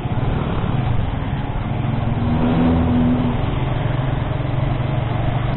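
Motorcycle engine running at low speed in slow traffic: a steady low hum under constant road noise.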